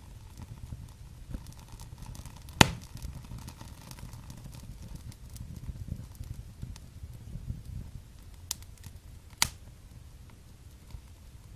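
Wood fire in a fireplace crackling, with scattered small snaps over a low rumble of the flames. A loud pop comes about two and a half seconds in and another near the end.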